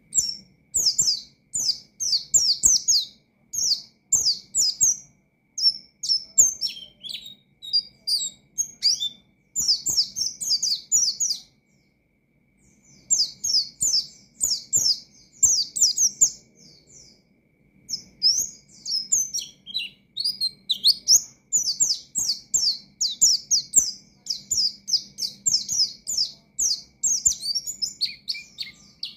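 White-eye (pleci) singing continuously in long runs of rapid, high chirps that each fall quickly in pitch, with a short break about twelve seconds in.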